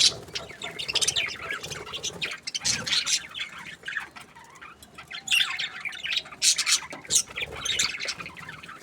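A group of budgerigars chirping and squawking, many short high calls overlapping, with a brief lull about halfway through.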